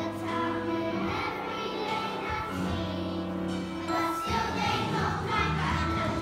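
A group of young children singing a song together with musical accompaniment, a new, slightly louder phrase starting about four seconds in.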